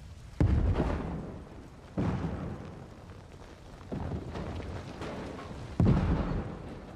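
A series of four explosions, heavy booms about two seconds apart, each hitting suddenly and trailing off over a second or so.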